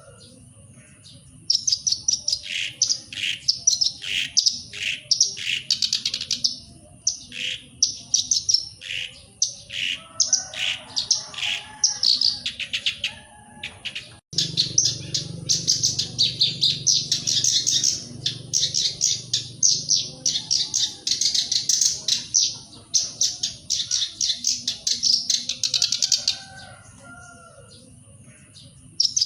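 Black-browed reed warbler singing: long runs of fast, repeated high chattering notes. It pauses for about a second at the start, breaks off briefly about halfway, and falls quiet for a few seconds near the end.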